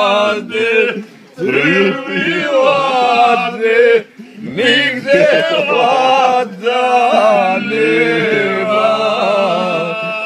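Men singing a Serbian folk song together without accompaniment, in long drawn-out phrases with short breaks between them; the singing stops at the very end.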